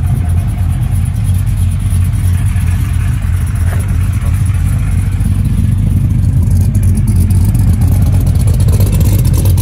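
Cammed GM LS-family V8 truck engine, with forged pistons and rods and a Texas Speed Stage 3 cam, running through its aftermarket exhaust with a steady deep rumble. It gets a little louder in the last few seconds.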